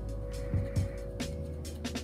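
Instrumental background music with a steady beat: low drum thumps, high ticks and sustained chords.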